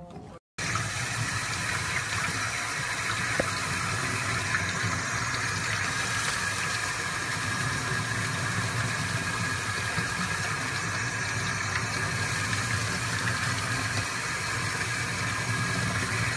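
Water running steadily from a sink faucet and pouring over a puppy as it is washed under the tap.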